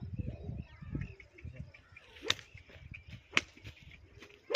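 A thin switch of twigs swung and struck three times, sharp cracks about a second apart, driving a cow up into a cargo rickshaw trailer.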